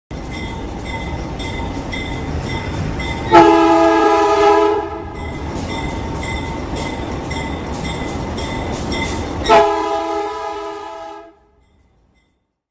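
Freight locomotive air horn sounding a chord in two blasts of about a second and a half each, a few seconds apart, over a train rolling by with regular clicks of wheels over rail joints. The sound cuts off suddenly near the end.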